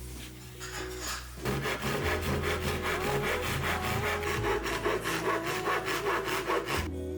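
Saw cutting through a wooden board with quick, even strokes, about four a second, starting about a second and a half in and stopping shortly before the end, over soft background music.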